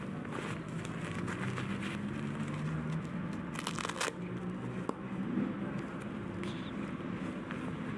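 Plastic-backed disposable diaper crinkling as it is handled and fastened, with a short tearing rip about halfway through as its tape tab is pulled open. A steady low hum runs underneath.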